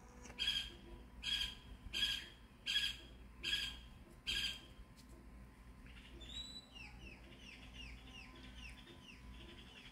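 Six short, high calls about three-quarters of a second apart, then a faint, quick run of falling bird chirps in the second half.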